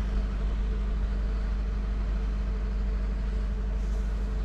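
Generator engine running steadily: a constant low drone with a steady hum that does not change.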